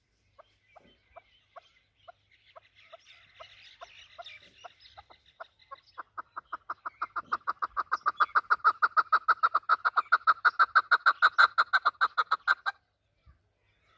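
Chukar partridge calling: short clucking notes that begin spaced out, then speed up into a loud, rapid, even run of chuck notes about halfway through, and stop abruptly a little before the end.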